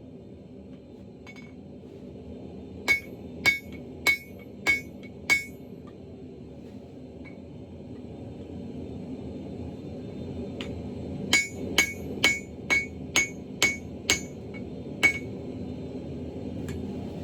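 Hand-hammer blows on an anvil while forging a hammer head from a truck axle shaft, each with a bright ring. There are five blows about 3 seconds in, then a quicker run of about nine near the end, over a steady rumble that slowly grows louder.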